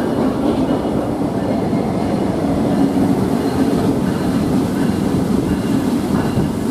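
CSX GP38-3 diesel-electric locomotive rolling past with its EMD 16-cylinder 645 diesel engine running at a steady, loud, low drone.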